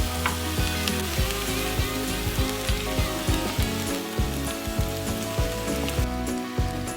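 Music with a steady beat, over an even hiss like frying or rain that stops about six seconds in.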